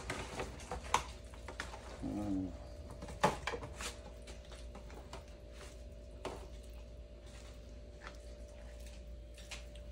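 Scattered clicks and knocks of kitchen handling over a faint steady hum, with a brief low pitched sound about two seconds in.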